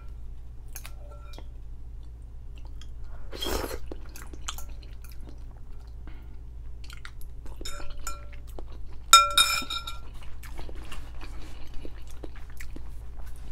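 Someone chewing and eating noodles with small mouth sounds and light clicks of a metal fork in a glass bowl, with a brief breathy rush about three and a half seconds in. A little after nine seconds the fork strikes the glass bowl in a sharp, ringing clink, the loudest sound.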